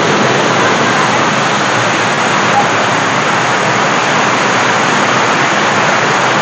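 Man-made waterfall pouring down a rock face, a loud, steady rush of falling water heard close up.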